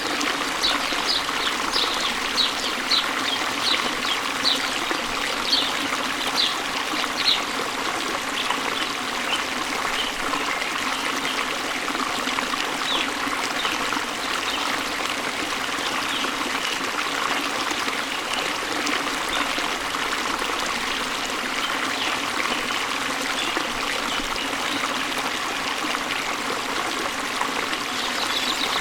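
Waterfall water falling and flowing into a stream, a steady rush. Over it a bird chirps again and again, short high notes about twice a second, for the first seven seconds or so, then only a few scattered chirps.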